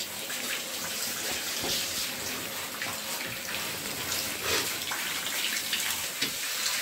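Handheld shower running, its spray rinsing a wet Labrador retriever's coat in a bathtub: a steady rush of water.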